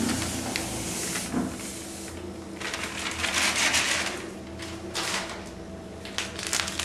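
Bicarbonate powder poured from a cut plastic packet into a plastic bucket: a soft rushing hiss that swells and fades, with crackly packet rustling near the end.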